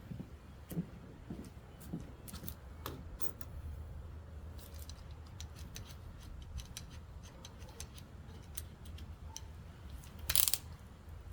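Scattered light clicks and knocks of workshop handling, with one louder brief scrape about ten seconds in, over a low steady hum.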